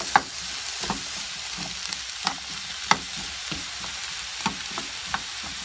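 Eggplant chunks frying in oil in a pan over medium heat: a steady sizzle with a few sharp clicks and pops as the pieces are stirred.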